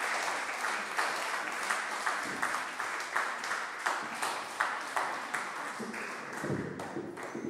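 Audience applauding, the clapping gradually fading away near the end.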